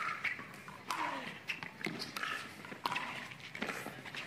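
Pickleball rally: paddles striking a plastic pickleball in a quick exchange of sharp pops, roughly one every half second to a second, with sneakers squeaking on the hard court between the hits.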